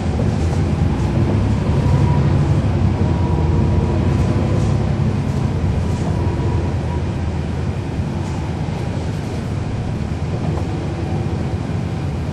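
A NABI 40-SFW transit bus's Cummins ISL9 inline-six diesel engine, heard from inside the bus while it is under way: a steady low rumble that grows a little louder about two seconds in and eases off after about six seconds.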